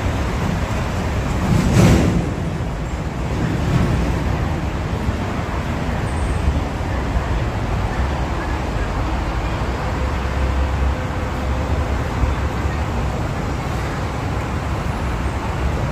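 Steady road traffic from the busy road beside the elevated station platform, with one vehicle passing louder about two seconds in.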